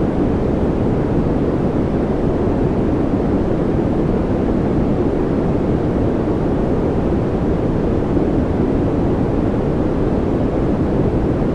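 Continuous steady noise played as a focus and relaxation background: an even, deep rushing sound with most of its weight in the low range and little hiss, unchanging throughout.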